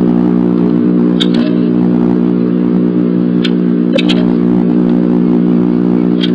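Loud, steady electrical hum, a low buzz of many evenly spaced tones, from the nest-box camera's audio. Over it come a few short, sharp ticks: about a second in, twice around four seconds in, and at the end, as a bluebird moves about in the wooden box.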